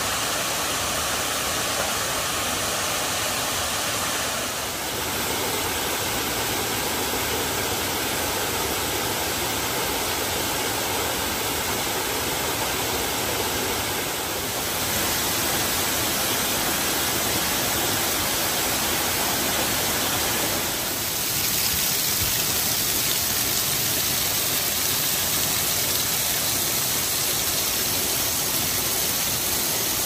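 Waterfall pouring and splashing onto rocks: a steady rush of falling water that shifts in tone a few times and gets a little louder and brighter from about 21 seconds in.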